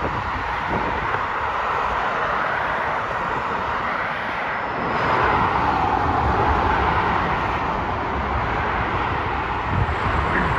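A steady distant engine roar that swells about halfway through, with wind buffeting the microphone.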